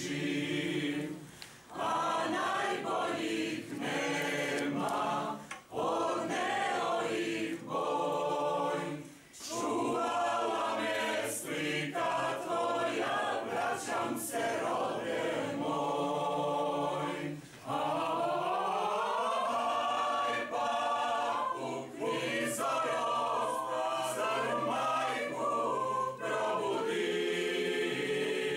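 Mixed choir of men's and women's voices singing unaccompanied, in phrases separated by a few brief pauses for breath.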